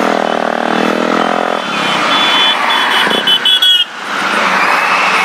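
Motorcycle engine running with a steady note for the first second and a half, then giving way to wind and road rumble as the bike slows onto a dirt shoulder. A run of quick high beeps sounds from about two to four seconds in.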